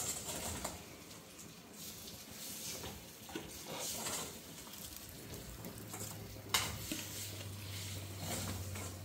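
Cooking sounds: a utensil stirring and scraping in a pot, with scattered clinks and a sharp knock about six and a half seconds in. A faint low hum comes in just before the knock.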